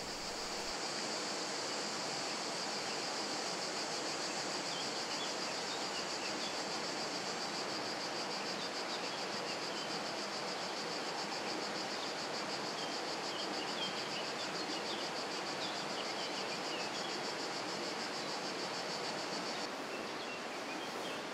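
Insects stridulating: a continuous, high-pitched, finely pulsing trill over a steady outdoor hiss, cutting off abruptly near the end. A few faint short chirps sound over it.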